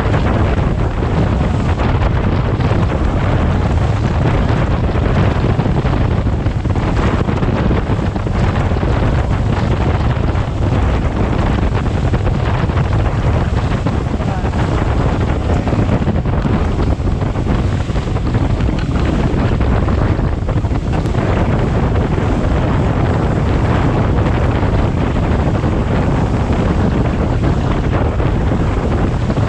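Wind buffeting the microphone aboard a boat under way, over a steady low rumble and rushing water.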